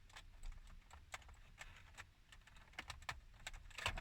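Faint, irregular plastic clicks and taps from hands working behind a loosened car centre dash fascia, handling and unplugging its wiring connectors.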